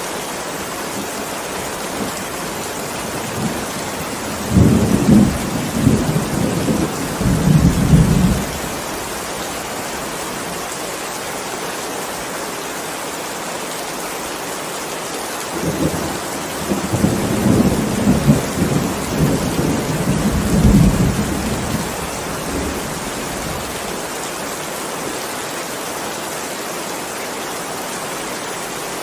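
Steady heavy rain with two rolls of thunder, one about four seconds in lasting some four seconds, and a longer one about halfway through.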